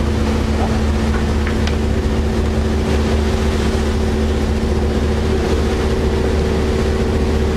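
A large engine running steadily at constant speed, a low drone with a steady hum of several pitches that does not change.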